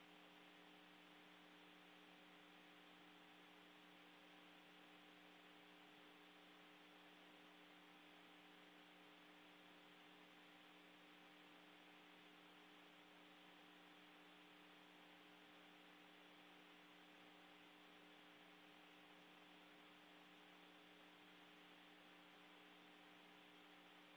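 Near silence: a faint, steady electrical hum over a constant hiss, with no change throughout.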